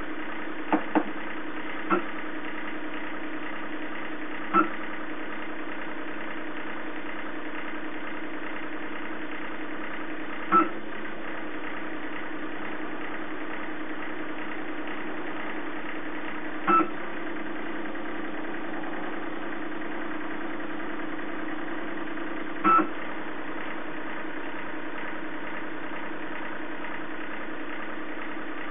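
Hanna HI902C automatic titrator at work: a steady motor hum from the running stirrer and burette pump during a free SO2 titration. A short, louder whirr comes about every six seconds as the burette doses titrant.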